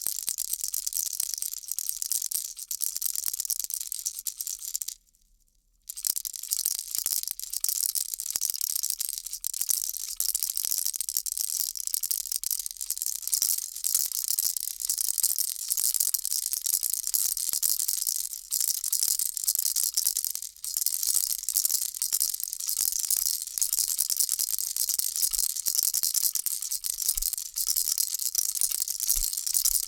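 Baby rattle shaken continuously, a dense high-pitched rattling that breaks off for about a second roughly five seconds in, then resumes.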